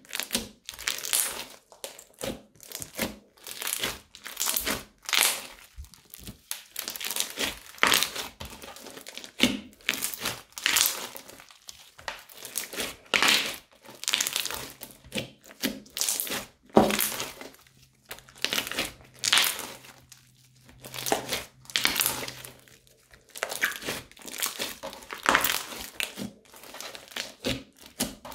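Crunchy slime studded with small beads being squeezed and pressed by hand, crackling and popping in a burst about every second as it is kneaded.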